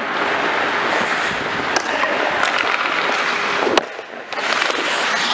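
Ice hockey rink play: a steady scraping hiss of skates on the ice, broken by a few sharp clacks of sticks and puck, the loudest just before four seconds in.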